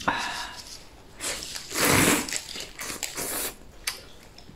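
A person slurping rice noodles from a bowl, with a few short noisy slurps; the loudest is about two seconds in.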